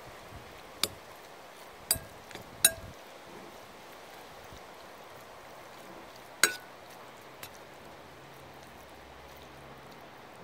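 Metal spoon clinking against a white ceramic bowl while stirring noodles: five sharp clinks with a brief ring, three in the first three seconds and two more past the middle.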